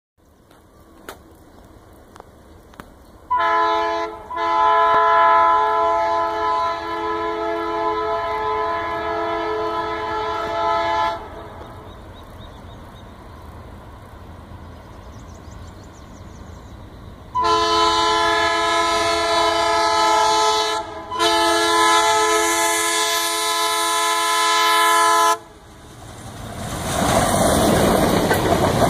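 Indian Railways WDM-3A diesel locomotive sounding its multi-tone horn in two long blasts, each about eight seconds with a brief break, as it approaches. Then, about 26 seconds in, the loud noise of the locomotive and coaches passing close by on the track.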